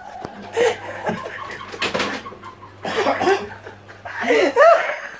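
People laughing in fits, mixed with a few unclear spoken sounds, over a faint low steady hum that stops near the end.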